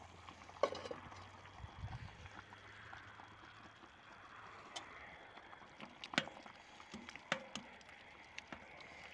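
Pot of beef stew simmering with a faint bubbling. A knock about half a second in, then a few clinks of a spoon against the pot as the stew is stirred in the last few seconds.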